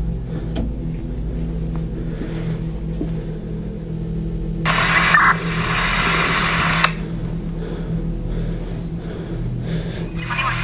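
Steady low hum, with a burst of police radio static about four and a half seconds in that lasts about two seconds and cuts off suddenly.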